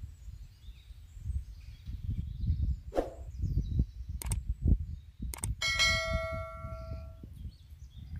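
Sharp clicks followed by a bell ding that rings with several overtones and fades away over about a second and a half: the sound effect of an on-screen subscribe-button animation. A low rumble runs underneath.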